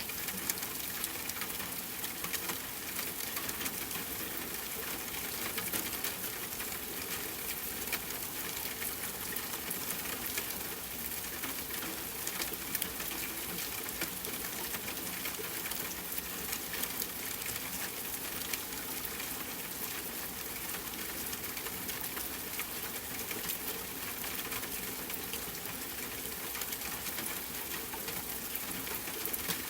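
Steady rain, an even hiss dense with small drop patters and ticks, with no let-up or change.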